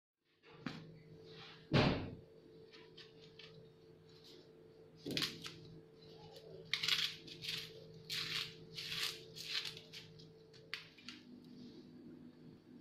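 Kitchen handling noises: a sharp knock about two seconds in, then a run of short rustles and light knocks as vegetables are taken out of a woven basket and set on the counter and a wooden cutting board, over a steady low hum.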